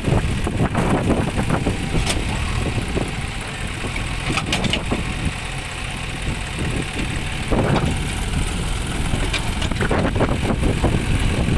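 Diesel engines of a John Deere 5042 tractor and a JCB backhoe loader running together, steady and loud, with a few short sharp knocks.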